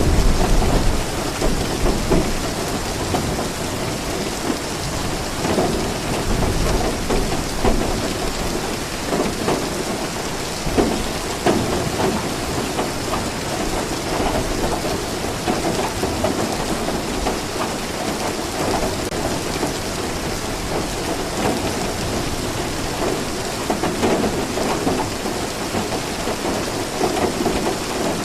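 Steady, dense rainfall pattering without a break, with low rolls of thunder near the start and again around six seconds in.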